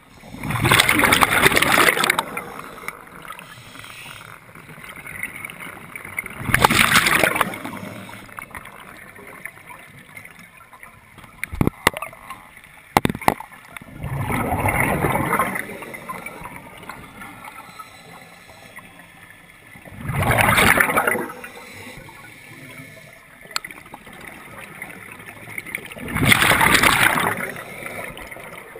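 Scuba diver breathing through a regulator underwater: five loud rushes of exhaled bubbles, about one every six seconds, with a quieter hiss between them. A couple of sharp clicks come midway.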